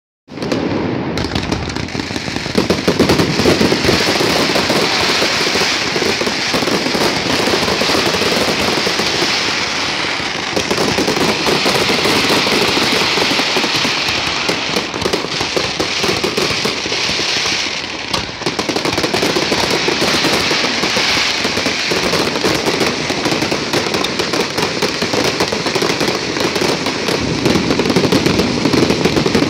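Aerial fireworks display: a loud, dense, unbroken barrage of bursts and crackling that starts abruptly right at the beginning.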